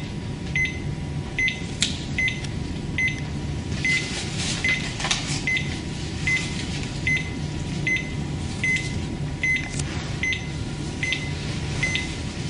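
Cardiac monitor sounding a short beep with each heartbeat it detects, evenly a little under once a second (about 75 a minute), over a steady low hum. A few faint clicks of cables and electrodes being handled.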